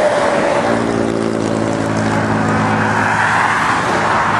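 A motor vehicle's engine hum, steady for about three seconds, with road and tyre noise swelling near the end.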